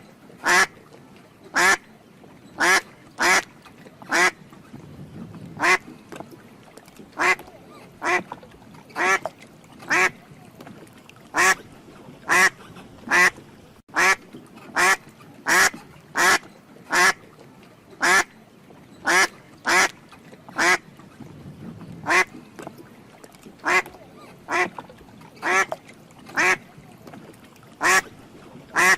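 A duck quacking over and over, short nasal calls about once a second with a few brief pauses.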